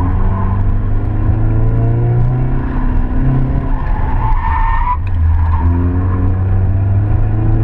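Chevrolet Cavalier driven hard, heard from inside the cabin: the engine is under load, its note climbing and dropping several times. The tyres squeal through the corners, loudest about four to five seconds in, and the squeal cuts off suddenly.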